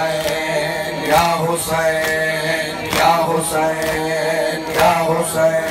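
Male voices chanting a noha, with a crowd of men beating their chests in matam: sharp, regular hand slaps keeping time under the chant.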